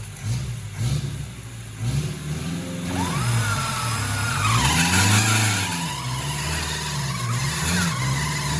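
Off-road 4x4 engine revving up and down about once a second as it works through the trail, with the biggest rev about five seconds in. From about three seconds in, a thinner whine wanders in pitch and then holds steady.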